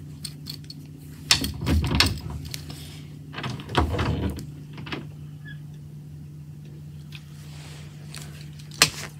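Knocking on a door: a few sharp raps about a second in, another group of raps around four seconds, then a single sharp click near the end, over a steady low hum.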